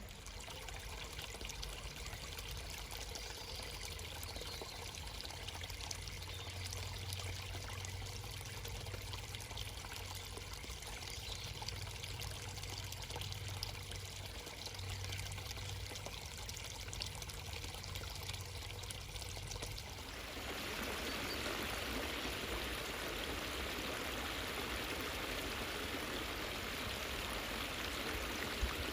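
Running water from a small stream, trickling and pouring steadily; about twenty seconds in it changes to a louder, fuller rush of water.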